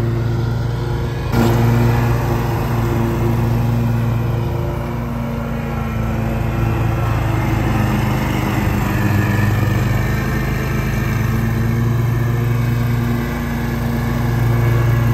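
Riding lawn mower's engine running steadily with a continuous hum. It gets suddenly louder about a second in, and its pitch dips slightly about halfway through.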